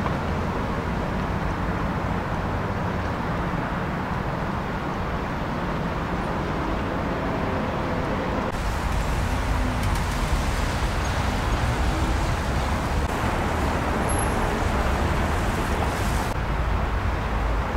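Steady city traffic noise with a low rumble, with no distinct single event; the mix shifts slightly about eight seconds in and again near the end.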